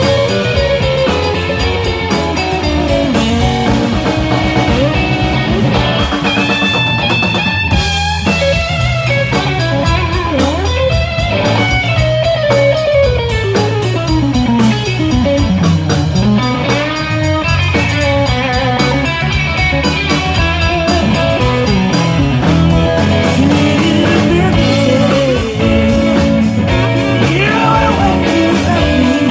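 Live blues-rock band playing an instrumental passage: electric guitar, electric bass, drum kit and saxophone, with notes that slide up and down in pitch.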